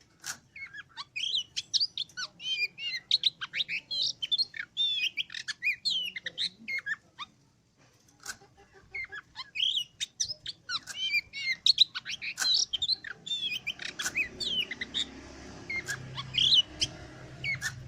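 Oriental magpie-robin (kacer) singing a fast, varied stream of whistles, trills and chirps, with a short pause about halfway through. A low hum comes in under the song near the end.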